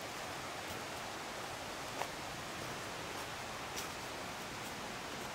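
Steady rushing of a mountain river, with two faint clicks about two and four seconds in.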